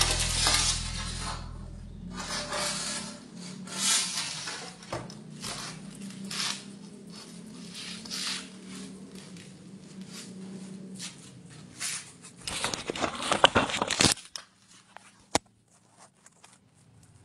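Angle grinder with an abrasive wheel scraping the black backing paint off a glass mirror in uneven scratchy passes. The loudest stretch comes near the end, then it stops. Background music fades out in the first few seconds.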